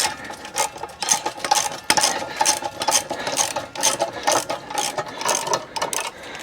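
Jack being worked to lift a Harley-Davidson motorcycle: a run of irregular ratcheting metal clicks and strokes, a few a second, with a faint squeak.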